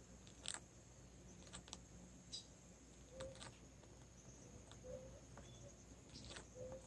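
Near silence: faint ambience with a steady high-pitched insect drone, scattered faint clicks and a few soft, short chirps.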